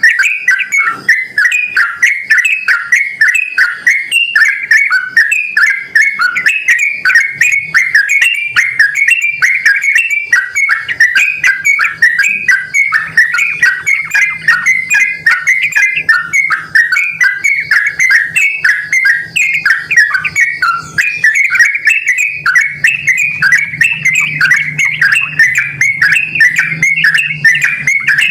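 Yellow-vented bulbul (trucukan) singing loudly and without pause, a fast, bubbling chatter of short whistled notes.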